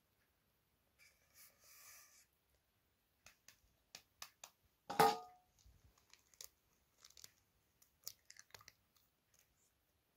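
Faint handling sounds of hand-made dough: scattered small clicks and taps, with one sharp knock that rings briefly about halfway through as an egg is cracked to add to the flour. A short rustling scrape comes about a second in.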